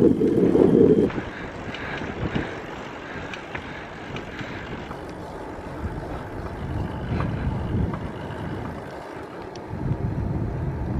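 Wind rushing over the microphone while riding a touring bicycle along an open highway: a steady noise with no tone in it, loudest in the first second and swelling again near the end.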